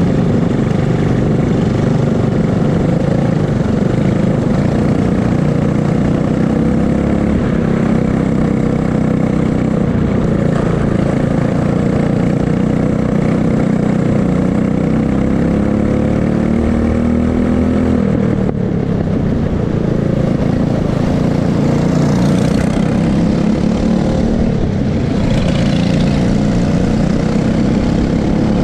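Racing go-kart engine heard from onboard the kart, its pitch rising and falling with speed through the corners. It drops briefly about two-thirds of the way in, then climbs again.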